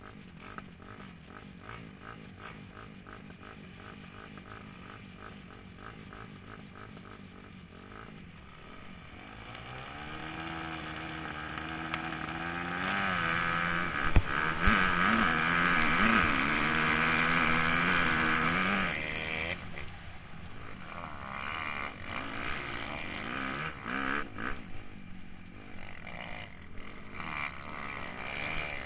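Motocross bike engines idling at the start gate, then revved up from about nine seconds in and held at high revs with the pitch wavering, loudest just after halfway. A little past two-thirds the sound changes suddenly as the bikes launch, and the engine is heard rising and falling as the rider accelerates over the rough dirt track.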